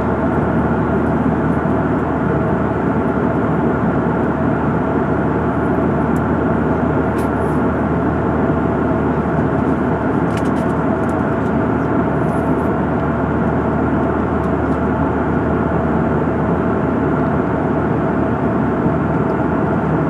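Jet airliner cabin noise at cruising altitude: a steady, unchanging rush of engine and airflow noise with a few faint steady tones in it.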